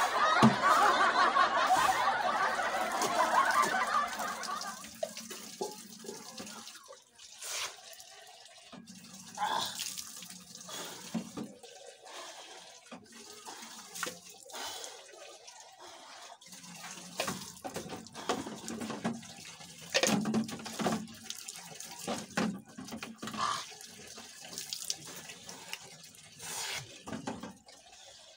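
Water poured from a large plastic water bottle splashing onto a wet concrete floor for about the first five seconds, then quieter, scattered splashes and drips of someone bathing with a dipper and basin.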